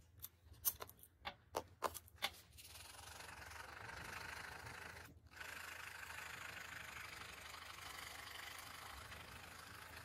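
Plastic pens clicking against each other as they are put down and picked up, a quick run of sharp clicks. About two and a half seconds in, a ballpoint pen starts scratching steadily across paper in fast hatching strokes, with a brief break about five seconds in.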